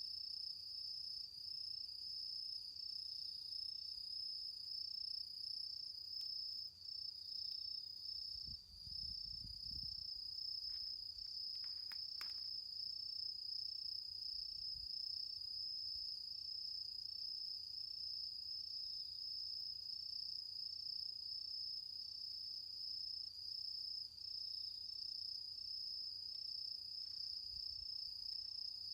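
Autumn insects calling in a steady, high, pulsing trill that never lets up. A brief low rumble comes about nine seconds in, and a few faint clicks just after.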